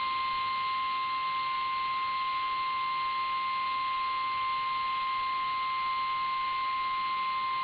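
The National Weather Service's 1050 Hz warning alarm tone, one steady unbroken beep, sounding in an Emergency Alert System activation to announce a flash flood warning.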